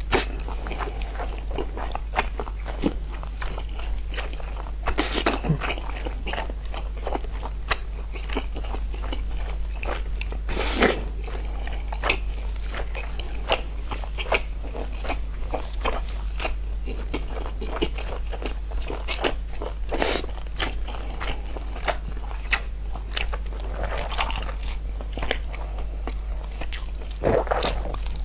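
A person eating close to the microphone, biting and chewing crunchy food, with many short crunches and a few louder bites, over a steady low hum.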